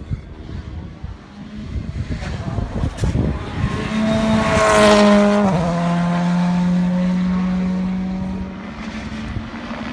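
Rally car at full speed approaching and passing close by, its engine note growing louder to a peak about five seconds in, dropping sharply in pitch as it goes past, then fading away.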